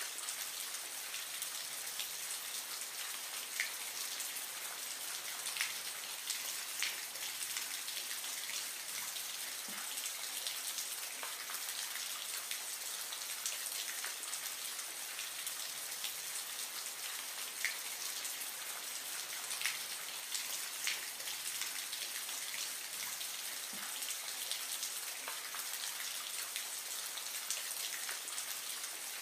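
Steady splashing, trickling water with scattered small drip-like ticks.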